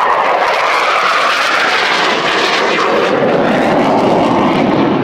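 F-16 fighter jet passing low overhead: a loud, steady jet roar that slides down in pitch as the jet goes by.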